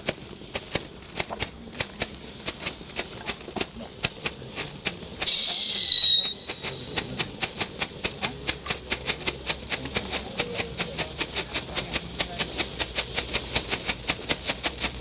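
Lesli 'Shimmer & Shine' cone fountain burning with an even run of sharp crackling pops that comes faster as it goes. About five seconds in, a loud whistle with a slightly falling pitch sounds for about a second.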